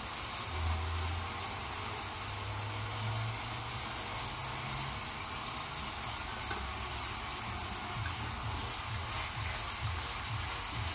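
Mushrooms and onions sizzling in a frying pan over a gas burner, a steady hiss, with a low hum through the first half. Near the end a utensil stirring through the pan adds soft irregular knocks.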